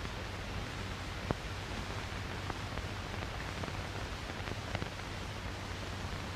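Steady hiss and low hum of a 1930s film soundtrack, with a few faint clicks about a second in, two and a half seconds in and near the end.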